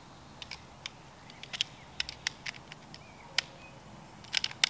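Irregular small, sharp clicks and scrapes from handling gear by hand on leaf litter, about ten of them, with a quick cluster of the loudest near the end.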